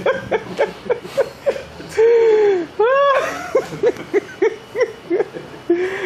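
A woman laughing in quick short bursts, about five a second, broken by a few long, drawn-out cries that rise and fall in pitch.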